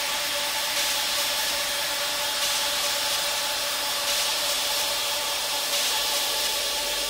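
Beatless stretch of a techno track: a steady hissing noise wash over a few held synth tones, swelling softly about every second and a half.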